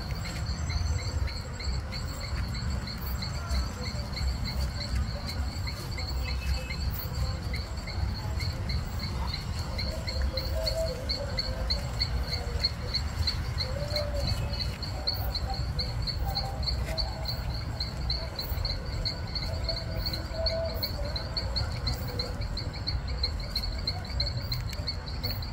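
Insects chirping in a fast, steady, pulsing high trill, over a continuous low rumble.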